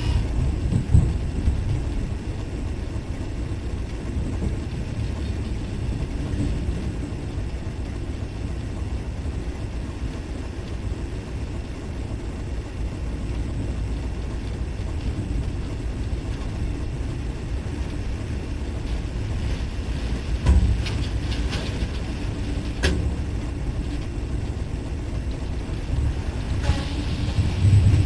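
Steady low rumble inside a diesel locomotive's cab, with a few sharp knocks about two-thirds of the way through and the noise building near the end as rain starts to streak the cab window.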